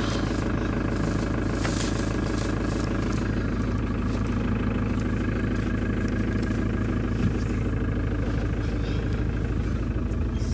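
Vehicle engine running steadily, heard from inside the cabin.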